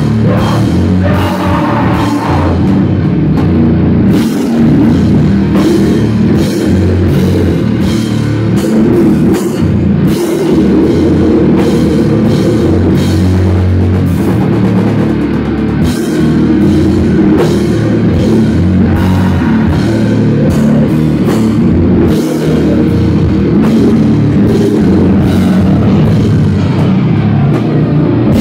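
Loud live rock band playing a heavy song: electric guitars over a drum kit, with steady drum hits throughout.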